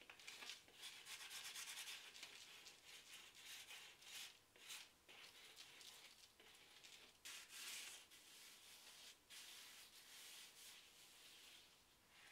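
Faint scraping of sandpaper rubbed by hand over the rough cured cement top of a planter stand, in runs of quick strokes with short pauses.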